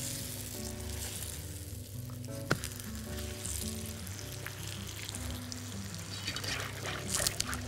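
Folded galash (phyllo-type) pastry sheets frying in ghee in a non-stick pan, with a steady sizzle. A single sharp click comes about two and a half seconds in, and soft background music plays underneath.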